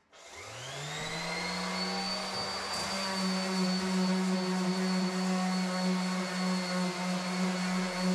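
Electric random orbital sander starting up, its whine rising in pitch over the first second or so, then running steadily as it sands dried filler on plasterboard joints. The hiss of sanding grows about three seconds in.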